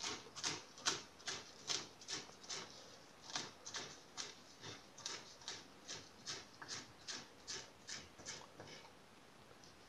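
Kitchen knife chopping fresh mint on a wooden cutting board: faint, even taps about two and a half a second, which stop about a second before the end.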